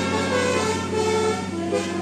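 Bus telolet horn playing a quick tune, a run of short notes stepping up and down in pitch, over a steady low hum.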